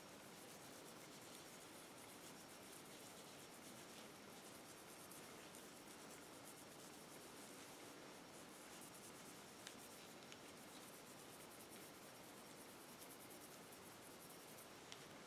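Near silence with faint, steady rubbing of a polishing cloth on an Umarex Colt SAA replica revolver, and a light tick or two near the end.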